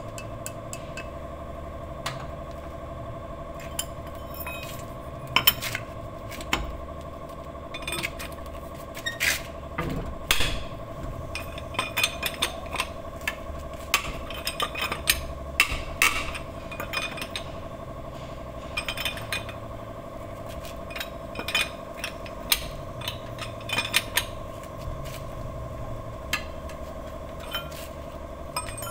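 Steel hand tools clinking and clanking in irregular sharp strikes as a lug wrench works the wheel nuts on a car wheel, over a steady background hum.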